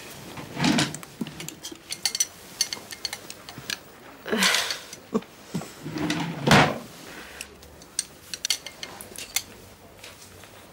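Light clicks and rustling of a stethoscope and clothing being handled during a bedside chest examination, with three louder soft rustles about a second in, around four and a half seconds in and around six and a half seconds in.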